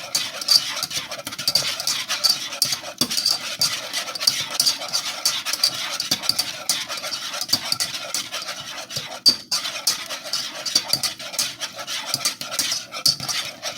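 Thick cooked grits being stirred in a pot: a utensil scrapes and clicks against the pot continuously as butter, salt and pepper are mixed in.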